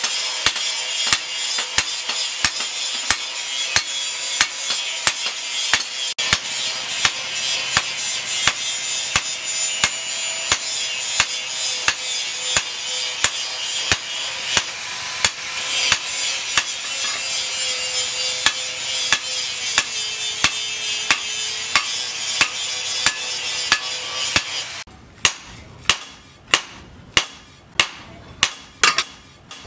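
Hand hammer striking red-hot steel cut from a tractor disc plough on a cylindrical steel anvil, steady blows about two a second. A steady high hiss lies under the blows and drops away near the end.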